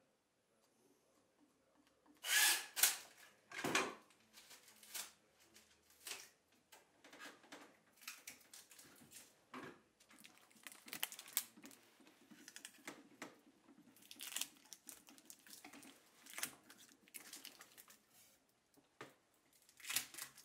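Packing tape pulled off a handheld tape dispenser and torn, in repeated short tearing bursts, the loudest a couple of seconds in.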